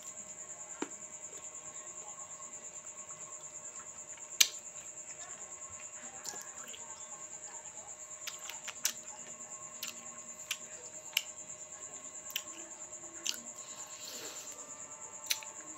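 Crickets chirping in a steady, rapid high trill. A few sharp clicks cut through it, the loudest about four seconds in.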